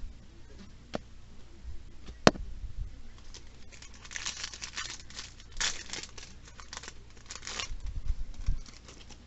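A foil booster-pack wrapper being torn open and crinkled by hand, a dense crackling rustle for several seconds after two sharp clicks. A few dull knocks near the end.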